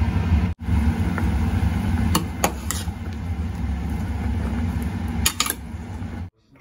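A steady low mechanical hum with a few light clinks of a metal ladle against a stainless steel pot of kumquats simmering in syrup: three clinks a few tenths of a second apart, then more about two seconds later. The hum cuts off abruptly near the end.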